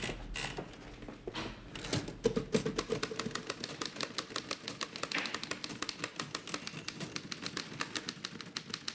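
Manual office typewriters being typed on: a few separate clicks, then fast, continuous clacking of the keys from about two seconds in.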